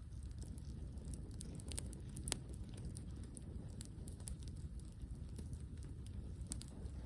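Wood campfire crackling, with scattered sharp pops and one louder pop about two seconds in.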